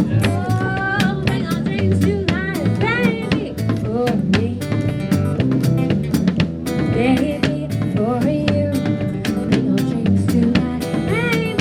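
Live band playing an instrumental passage of a song: a drum kit keeps a steady beat of kick, snare and cymbal strikes under a bass line, while a lead melody slides and bends in pitch above them.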